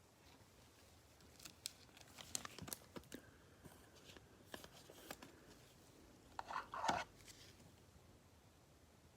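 Trading cards and their packaging handled on a table: faint scattered clicks and rustles, with a louder crinkle about two-thirds of the way through.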